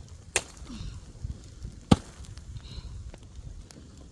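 Axe chopping into a roasted goat carcass: two strikes about a second and a half apart, the second the louder, with faint knocks between.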